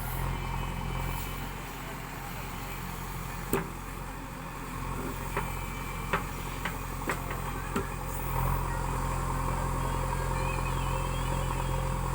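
JCB 3DX backhoe loader's diesel engine running steadily, with several sharp knocks in the middle stretch; the engine grows louder about eight seconds in.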